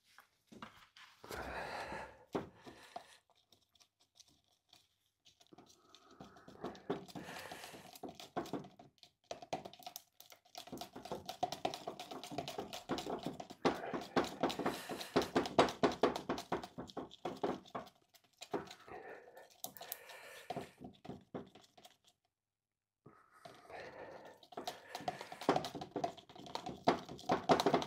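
Paint being stirred in a tin to mix in a splash of thinners: bursts of quick, repeated scraping and knocking against the tin. The stirring is busiest in the middle, with pauses in between.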